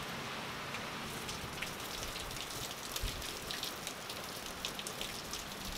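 Heavy thunderstorm rain falling and hitting hard surfaces close by, with many sharp drop hits from about a second in.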